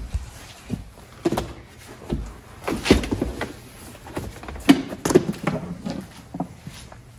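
Tesla Model X rubber all-weather cargo liner being pulled out of the cargo area: irregular thumps, scrapes and flaps as the heavy mat drags over the floor and bends, the loudest knocks about three seconds in and again just before five seconds.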